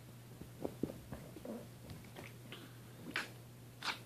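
Persian kitten and teacup poodle play-fighting: soft scuffling and light taps, then two short, louder noisy sounds near the end.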